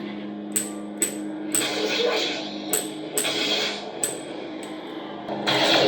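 Lightsaber sound board playing its steady low idle hum through the hilt's small speaker, cut by about seven sharp clash-like strikes. Louder music-like sound comes in near the end.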